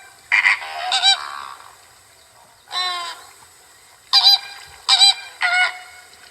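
Flamingo honking calls: about six short honks in a row, the one about three seconds in longer and falling in pitch.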